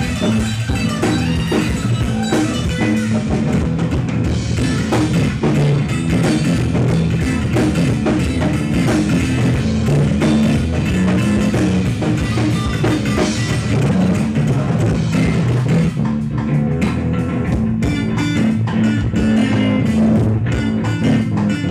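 Live band playing an instrumental rock jam on electric bass, acoustic-electric guitar and drum kit, loud and steady throughout.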